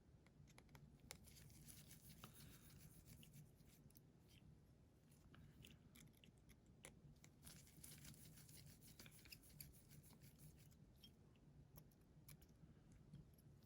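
Near silence with faint, scattered small clicks and scrapes of metal repair tools and small parts being handled on an opened iPhone 7, over a faint steady low hum.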